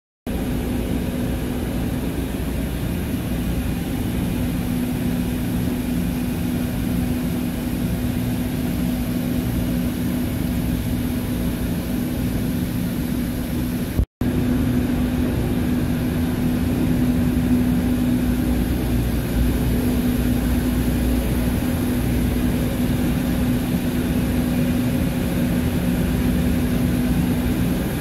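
Large diesel machinery running steadily in a ship's engine room: a dense low rumble with a constant hum above it. It cuts out for an instant about halfway through, then carries on a little louder.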